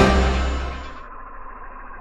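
Background music fading out over about the first second, leaving a faint steady drone with a thin whine.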